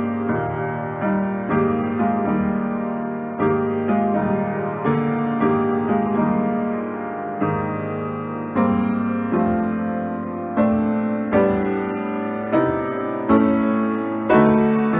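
Solo upright piano playing a slow piece, chords struck about once a second and left to ring down between strikes.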